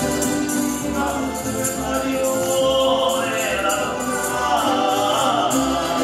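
A Spanish tuna (student estudiantina) performing: a group of men singing together in chorus to strummed Spanish guitars and bandurrias.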